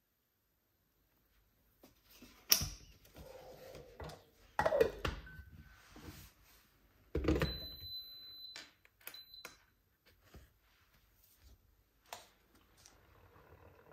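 A few knocks and thunks with lighter clicks, and an electronic beep about halfway in, held for about a second, followed by a short second beep.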